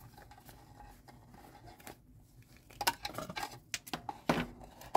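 Hands handling a wristwatch and its leather strap buckle and packaging: faint fiddling, then a quick run of small clicks and taps about three seconds in.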